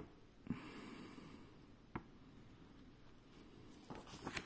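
Quiet room with faint handling of a paper insert: two soft clicks, about half a second and two seconds in, and light paper rustling near the end as the card is turned over.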